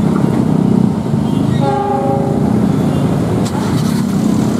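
KAI diesel locomotive engine running with a steady low rumble as the train passes on the double track. A short horn blast sounds about two seconds in.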